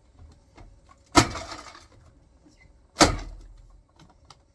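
Two sudden loud clattering knocks about two seconds apart, each rattling away over most of a second, from the refrigerator's ice bin and dispenser as crushed ice comes out.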